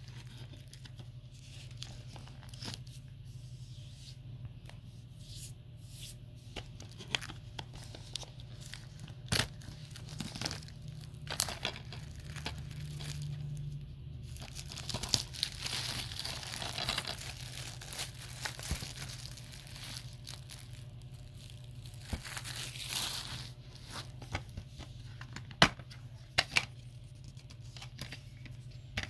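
Cellophane shrink-wrap being torn and peeled off a plastic DVD case, with crinkling and scattered sharp crackles, busiest in the middle. A few loud sharp clicks near the end as the plastic case is opened.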